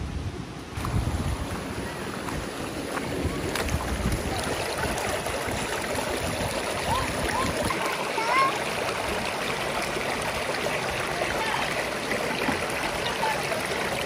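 Mountain stream running over rocks: a steady rush of flowing water.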